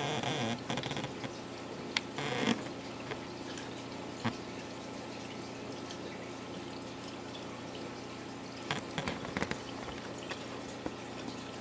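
Reef aquarium water trickling and splashing over a steady low hum, as its circulation runs. Short rustles and knocks break in at the start, about two seconds in, and again around nine seconds in.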